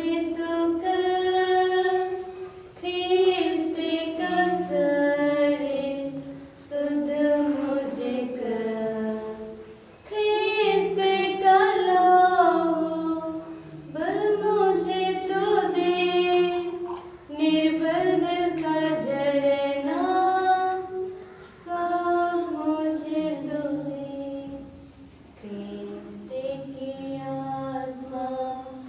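A woman's voice singing a slow communion hymn in sustained phrases of a few seconds each, with short breaths between them and a lower part holding notes underneath.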